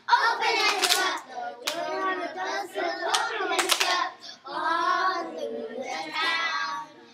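A group of young children singing together, with a few sharp hand claps among the sung phrases.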